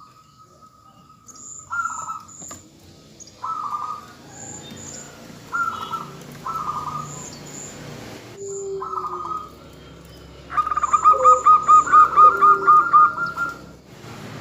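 Zebra doves (perkutut) cooing: short burry call phrases every second or two, then a fast run of about a dozen repeated notes near the end.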